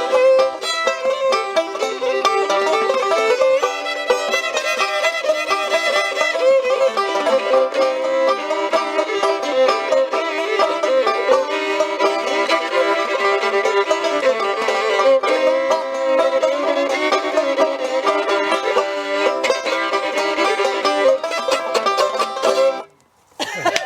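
Acoustic string instruments playing an instrumental passage of a folk song, steady and lively. The music cuts off abruptly about a second before the end.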